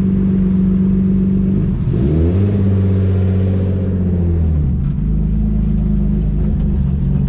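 BMW 325i's M52 straight-six engine running, then revving up about two seconds in, holding the higher revs for a couple of seconds and dropping back about four and a half seconds in.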